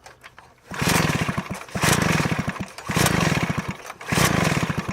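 Stihl SH 86 blower/shredder being pull-started with its spark plug out, the engine spinning over in four quick pulls about a second apart, each a brief rapid chatter. It is being cranked to push out the fuel flooding its crankcase, which the mechanic blames on a bad carburettor metering diaphragm.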